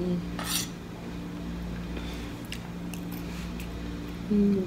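Someone eating from a plate: a spoon scrapes the plate about half a second in, then soft chewing and small cutlery ticks over a steady low hum, with a brief closed-mouth hum of the voice near the end.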